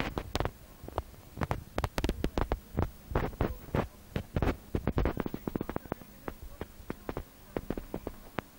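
A rabbit crunching dry food: a quick, even run of crisp chews about three a second, fainter near the end.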